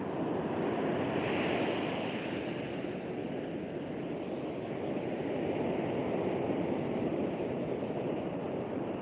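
Sea surf breaking and washing up the sand: a steady rush of noise that swells and eases.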